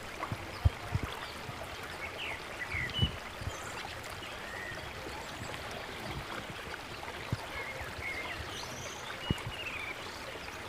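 Steady rush of flowing water, with small birds chirping now and then and a few soft knocks.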